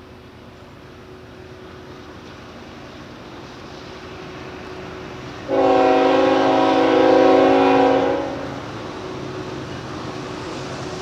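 Norfolk Southern diesel freight locomotive approaching, its engine and the rolling train rumbling steadily louder. Midway through it sounds one long blast of its air horn, a chord of several notes lasting nearly three seconds, and it keeps rumbling afterward.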